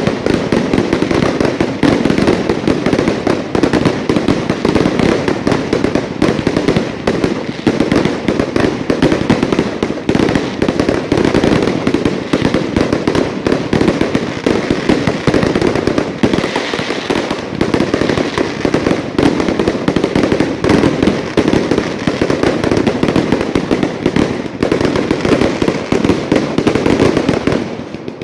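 Fireworks going off as a dense, continuous crackle of rapid pops that runs unbroken and then stops abruptly near the end.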